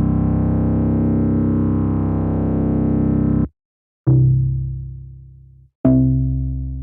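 Software synthesizer patch from the Arturia V Collection playing a held chord that cuts off sharply about halfway through. After a short gap come two struck, keyboard-like chords, each fading away.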